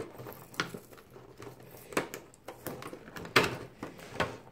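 Plastic wrapping on a boxed set of markers being torn and pulled off by hand: irregular crinkling and crackling with small knocks of the plastic case, loudest a little past three seconds in.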